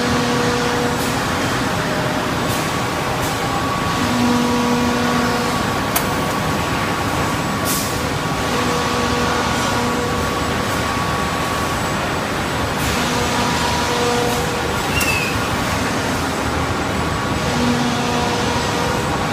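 Automatic wood panel jointing and cutting line running: a steady machine din with conveyor gear motors humming on and off in spells of about a second. There is a sharp click about six seconds in and a short hiss about eight seconds in.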